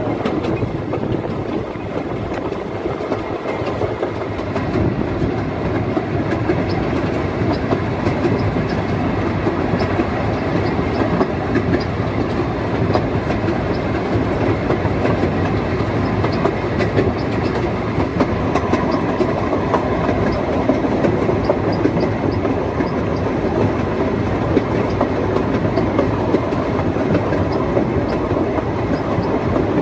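Quarry Hunslet narrow-gauge steam locomotive and its coach on the move, heard from right behind the tender: a steady running noise with the wheels clattering over the track.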